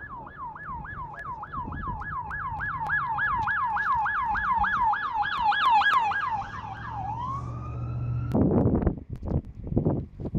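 Emergency vehicle siren on its yelp setting, about four quick falling sweeps a second. About seven seconds in it changes to one slower rising wail that cuts off abruptly, with an engine hum underneath. Gusts of wind buffet the microphone near the end.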